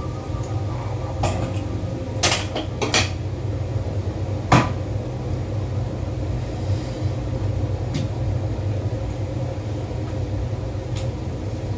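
Metal underarm crutches knocking and clacking against the floor and kitchen counter, about six sharp knocks spread out, over a steady low hum.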